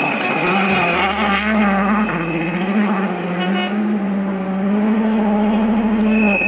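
Rally car engine running hard on a gravel stage, its note holding steady with slight rises and falls, with a brief high squeak about three and a half seconds in.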